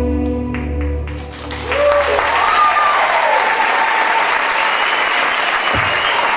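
Music ends on a held chord that fades out, then audience applause starts about two seconds in, with cheering and high whoops over it.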